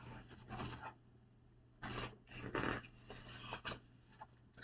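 Faint paper rustling and rubbing in several short bursts as the pages of a hardcover picture book are turned.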